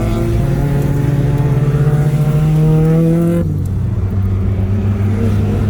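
Car engine accelerating hard on a track, its pitch climbing steadily for about three and a half seconds, then dropping abruptly as the throttle is lifted and settling into a lower, steady running note.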